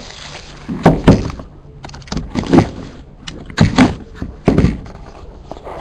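Cardboard trading-card boxes being handled and opened on a table: a series of separate thunks and knocks.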